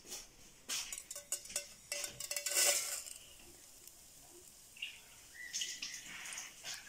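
Dry vermicelli strands tipped from a bowl into a steel pot, rattling and clicking against the metal for about two seconds, then a few lighter clinks near the end.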